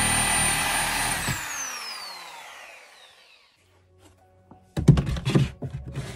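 Corded reciprocating saw running at full speed while cutting out a wooden wardrobe panel. About a second in it is switched off and its motor winds down with a falling whine, fading over about two seconds. After a short pause comes a quick run of knocks and thumps.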